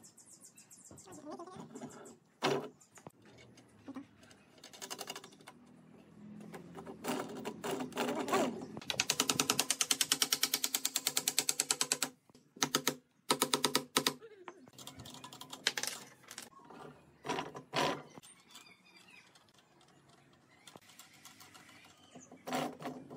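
Hand assembly of a wooden crank and pedal arm: scattered knocks of wood and metal parts, then a fast run of clicks lasting about three seconds near the middle, the loudest part. A few separate blows of a wooden mallet on the pine follow.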